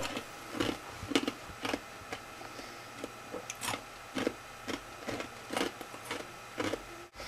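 A person chewing ice cubes, crunching them in short, uneven bites about twice a second.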